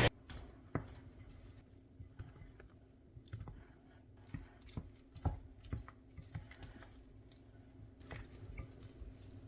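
Faint, irregular soft taps and wet squelches of a spatula folding a sticky wet mixture into flour in a bowl.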